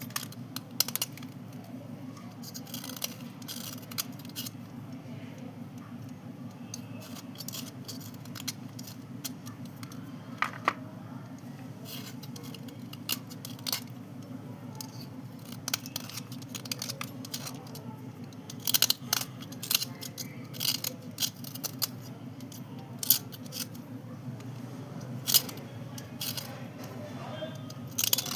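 Crisp, irregular crunching, scraping and clicking as soft white slate pencils are handled and rubbed clean dry, over a steady low hum.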